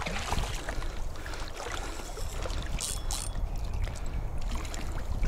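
Steady wind rumble on the microphone over open water, with a couple of short hissing sounds about three seconds in.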